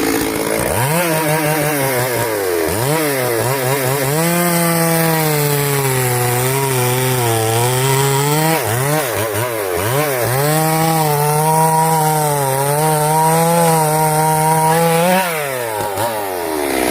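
Chainsaw cutting wood at high revs, its engine pitch sagging and recovering repeatedly as the chain bites. It drops back to a lower note about a second before the end.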